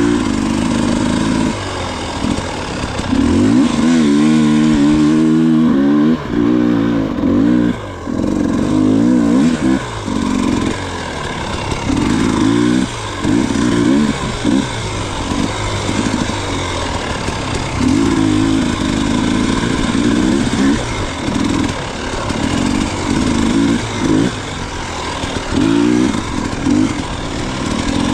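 Dirt bike engine on a trail ride, the throttle opened and closed in repeated short bursts so the engine pitch keeps rising and falling.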